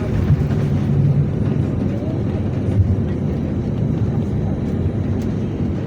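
Airbus A320 cabin noise after landing: a steady low rumble of the engines and airframe as the airliner rolls and taxis, with a brief bump about three seconds in.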